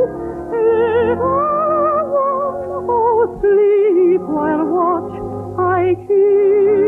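A soprano voice singing a sustained, slowly moving melody with wide vibrato over a soft orchestral accompaniment, heard as an old radio-broadcast recording.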